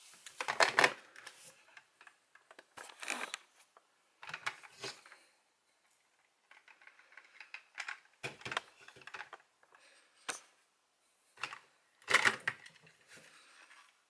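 Hard plastic toy parts clicking and rattling in about five separate bouts: Progrise Keys being handled and snapped into the slots of a plastic DX Progrise Key Connector holder.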